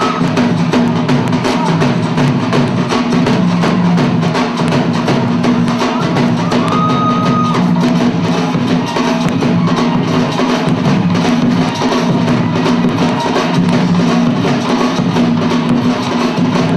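Loud bhangra music driven by fast, steady dhol drumming.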